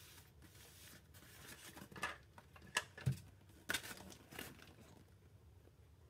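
Cardboard shipping box and its packing-tape flaps handled by hand: a handful of short scrapes and crackles, with a soft knock about three seconds in.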